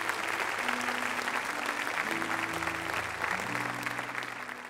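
Congregation applauding, a steady clatter of many hands, over soft held chords from an instrument that change every second or so.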